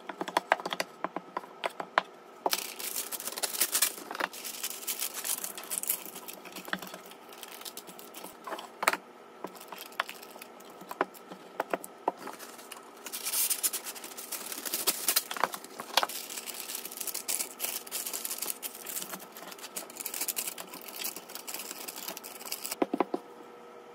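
A few sharp taps and scrapes of a block of butter being rubbed over a metal baking pan. Then, from about two and a half seconds in until near the end, parchment paper crinkling and rustling as it is folded and pressed into the pan.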